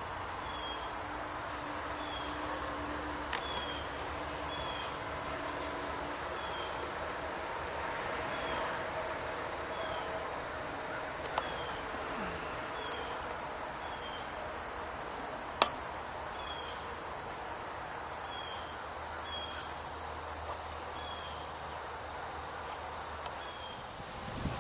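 Steady, high-pitched chorus of crickets and other insects, with short chirp notes repeating about once a second over it. A single sharp click comes about two-thirds of the way through.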